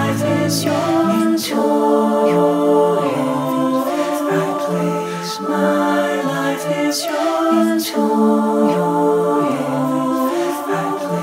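Unaccompanied voices singing a slow hymn in harmony, holding long notes.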